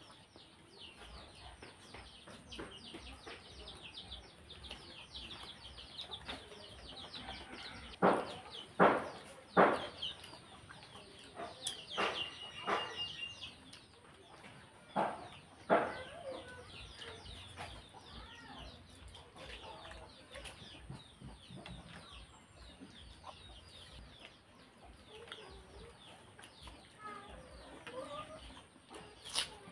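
Chickens clucking, with a run of loud clucks in the middle, over steady high chirping of small birds.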